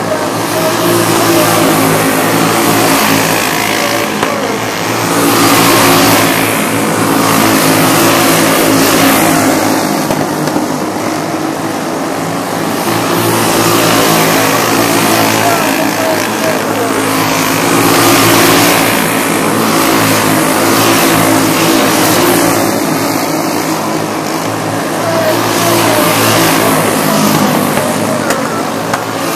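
Several dirt-track racing karts running at speed, their small engines' whine swelling and fading as the karts pass by and go round the oval.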